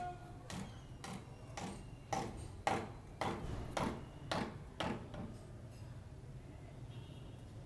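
A steady run of sharp knocks or ticks, about two a second, growing louder in the middle and stopping about five seconds in, over a low steady hum.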